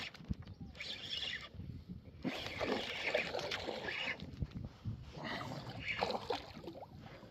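A hooked pike thrashing and splashing at the water's surface in several short bursts while it is reeled in toward the kayak.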